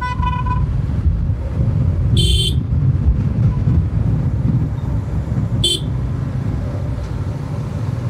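Steady wind and road rumble from a moving motorcycle ridden in strong wind, with a vehicle horn sounding twice: a half-second toot about two seconds in and a shorter one near six seconds.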